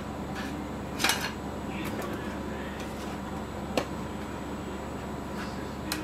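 A few short sharp clicks of small tools being handled on a repair bench: a quick cluster about a second in, one near the middle and one near the end. A steady low hum runs underneath.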